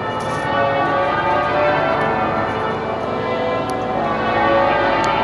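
Church bells pealing, many overlapping strokes at different pitches ringing on into one another.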